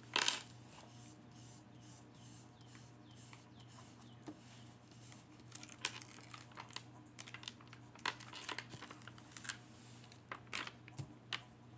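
Plastic cover film on a diamond painting canvas crinkling and rustling as it is lifted and smoothed back down, in scattered short crackles, the loudest just after the start.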